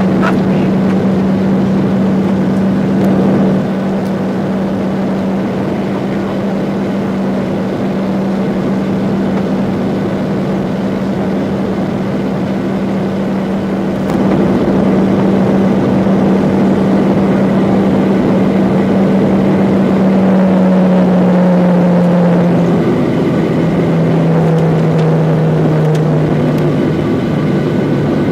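Airliner's jet engines running, a steady hum over a broad rushing noise. It gets louder about halfway through, and the hum drops in pitch in two steps near the end.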